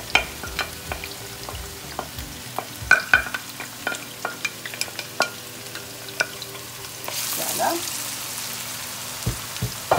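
A wooden spatula knocks and scrapes against a glass bowl and a stainless steel skillet as chopped green peppers and chilies go into hot oil, a string of light irregular clicks. About seven seconds in, a steady sizzling hiss rises as the vegetables fry.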